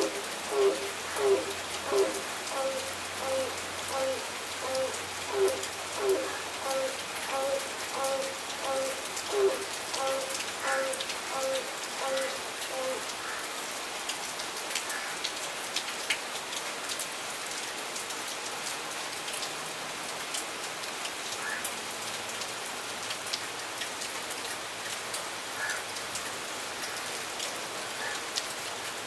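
Grey crowned crane giving a run of honking calls, about two a second, low and higher notes mixed. The calls are made with its red throat sac inflated. They stop about a dozen seconds in, leaving a steady hiss with a few faint calls near the end.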